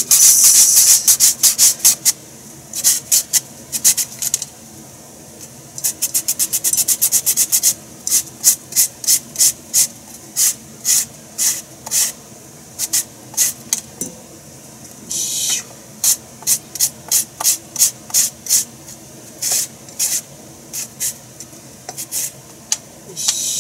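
Potatoes being pushed quickly back and forth across a hand julienne slicer over a bowl: quick runs of rasping strokes, several a second, with short pauses between runs.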